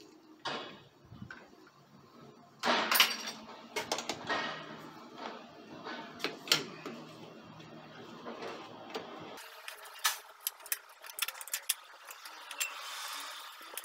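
Wrench working a 13 mm nut at a motorcycle's rear wheel: irregular metal clicks and clinks, with a louder clatter about three seconds in.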